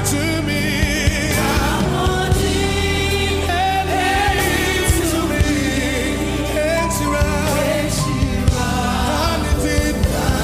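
Live gospel worship song: singers holding wavering, vibrato-laden notes over a band playing steady bass notes and a drum beat.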